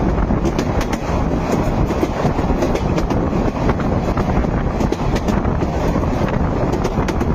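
A moving train: a steady low rumble of wheels on the rails, with scattered faint clicks.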